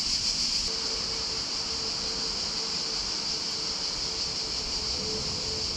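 Steady, high-pitched chorus of cicadas, with a faint steady hum joining about a second in.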